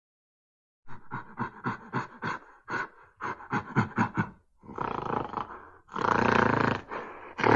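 Big cat roaring: after about a second of silence, a quick run of grunts at roughly four a second, then two longer roars, the second the loudest, and a short grunt at the end.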